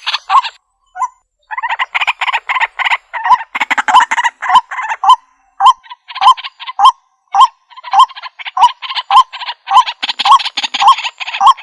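White-breasted waterhen calling: a rapid run of harsh, croaking notes, with a louder note repeating about twice a second. There is a brief pause about a second in.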